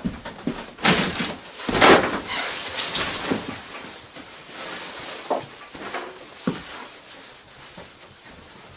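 A rag wiping the plastic cover of a motorized snow tow unit, three loud rubbing strokes about a second apart near the start, then quieter rubbing with a couple of light knocks.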